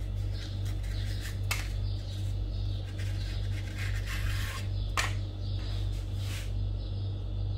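Close-up handling of a fondant bow and the rolled paper tubes inside its loops: irregular paper rustling and rubbing, with a sharp click about a second and a half in and another about five seconds in. A steady low hum runs underneath.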